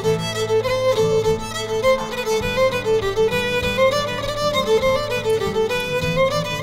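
Background music: a fiddle tune playing a quick, stepping melody over a steady accompaniment.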